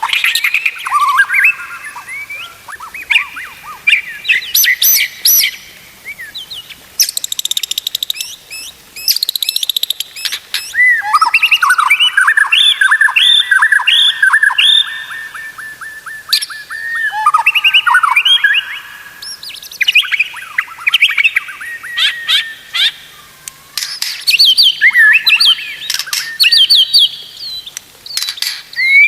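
White-rumped shama (murai batu) singing a loud, varied song of whistled phrases, trills and chatters, with a long run of quick repeated notes in the middle.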